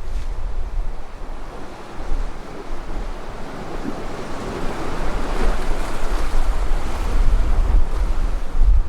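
Sea waves washing, with wind buffeting the microphone in low rumbling gusts; the wash swells up in the middle and eases off again.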